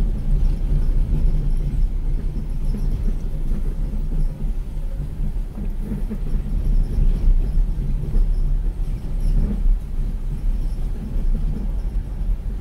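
A motor vehicle engine running steadily, a deep, even rumble.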